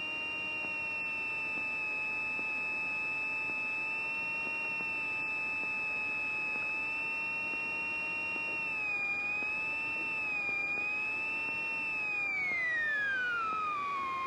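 Light airplane's engine during a pre-takeoff run-up, heard over the cockpit intercom as a steady whine that follows engine speed. The pitch holds, wavers briefly, then falls smoothly near the end as the power comes back.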